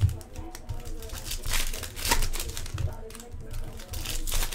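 Foil trading-card pack wrappers crinkling and tearing, in a quick series of sharp rustles as cards are handled and a pack is pulled open, with music underneath.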